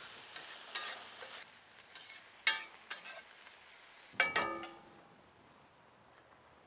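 Metal spatula stirring and clinking against a cast-iron skillet of chopped conch over a faint sizzle. Two louder ringing metal clanks come about two and a half and four seconds in.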